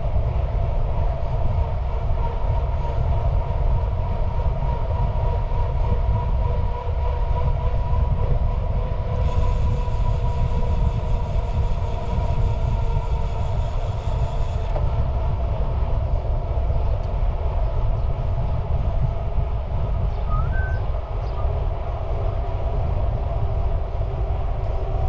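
Steady vehicle running noise: a continuous low rumble with a few faint held tones above it.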